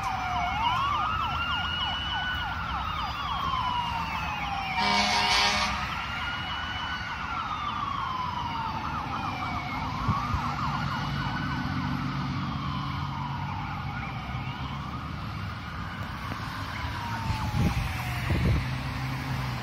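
Fire truck siren on a slow wail, rising and falling about every four to five seconds, with a faster warbling siren layered underneath. A short horn blast sounds about five seconds in, and a heavy truck engine rumble builds as the pumper passes.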